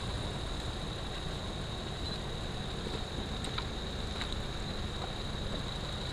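Toyota FJ Cruiser's V6 engine idling low and steady, with a thin, steady high-pitched drone over it.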